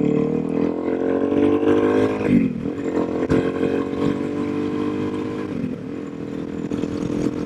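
Suzuki DRZ400SM's single-cylinder four-stroke engine pulling under acceleration, its pitch climbing steadily and dropping sharply twice as the rider shifts up through the gears.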